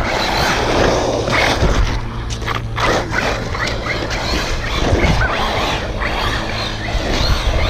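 Losi Baja Rey 1/10-scale brushless RC truck driving hard on gritty asphalt: its tyres scrub and spray grit in uneven surges over the electric motor's whine.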